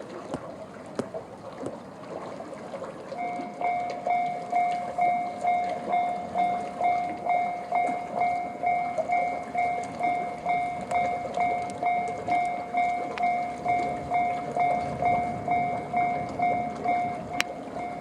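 Japanese level-crossing electronic warning bell sounding the JR standard tone: an evenly repeating ding, about two and a half a second, starting about three seconds in. It signals an approaching train.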